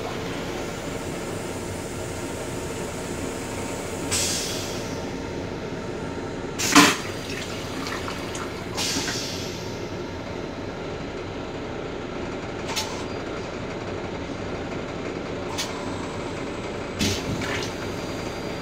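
LIRR M7 railcar toilet's stainless steel bowl going through its flush cycle: water draining from the bowl, short hissing spurts about four and nine seconds in, a sharp clack about seven seconds in, and water running down the bowl near the end. All of this sits over the steady rumble of the train car.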